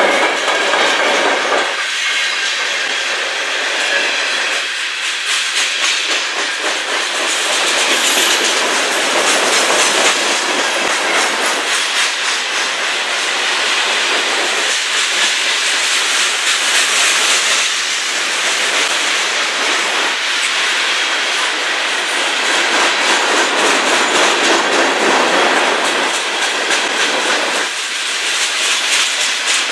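Freight cars of a CN manifest train rolling past close by. The steel wheels clatter steadily over the rail joints (clickety-clack), loud and continuous.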